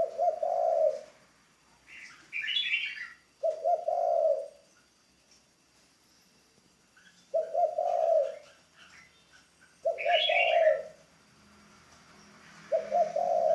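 Spotted dove cooing, a short low phrase repeated five times, about every three seconds. Higher chirps come in twice between the coos.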